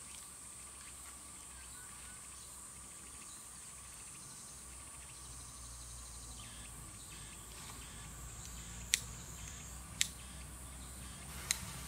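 Steady insect chirring in rural surroundings, with three sharp clicks in the last few seconds.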